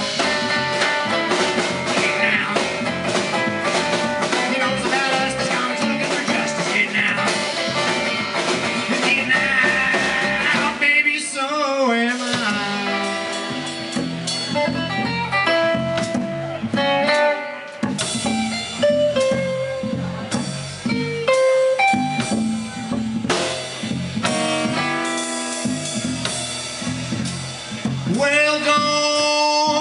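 Live rockabilly band playing an instrumental break: strummed acoustic guitar, upright bass and drum kit. The music is dense for about the first ten seconds, then thins to single held notes over the rhythm.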